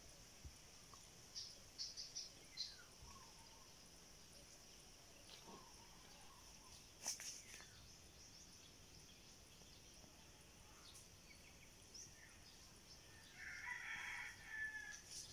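A rooster crows once, faintly, near the end, over near-silent farmyard quiet with a steady faint high hiss and a few soft clicks.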